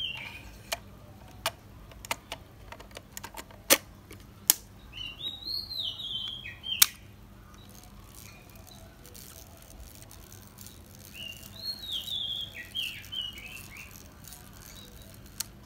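Sharp mechanical clicks from a Hasselblad A12 film magazine being worked by hand, reset and tested to check that its mechanism runs smoothly. There are several clicks in the first seven seconds. A bird chirps in the background a few times around the middle and again later.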